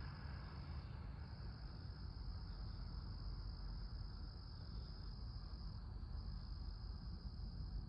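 A steady, high-pitched chorus of night insects such as crickets, with a brief dip about a second in and again near the end. Under it runs a low, steady rumble.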